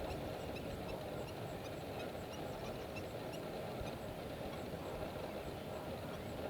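A flock of lesser flamingos calling together: a steady, dense chatter with many short, high calls over it.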